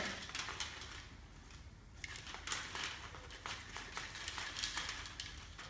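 Popped popcorn poured from a bowl onto a baking-paper-lined tray: a light, irregular rustling patter of popcorn landing on the paper, from about two seconds in until near the end.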